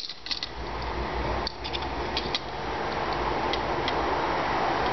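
Scattered small, sharp clicks and ticks, most of them in the first half, from fingertips handling a tiny plastic part close to the microphone, over a steady hiss and low hum.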